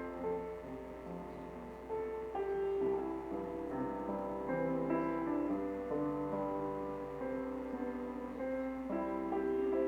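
Solo piano playing a slow, gentle piece, with sustained chords and melody notes changing about every half second to second.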